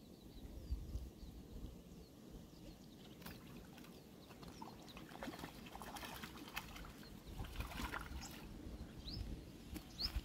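A small hooked fish splashing and flicking at the water's surface as it is pulled in on a light fishing rod: a run of irregular small splashes that starts about three seconds in, busiest around the middle.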